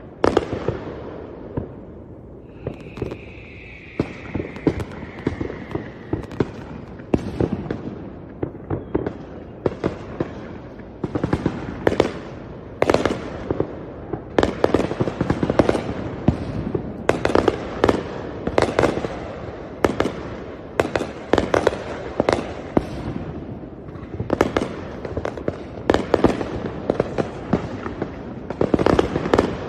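Fireworks going off in quick succession: many sharp bangs and cracks that thicken into a near-continuous volley from about eleven seconds in. A whistling firework's slowly falling whistle sounds a few seconds in.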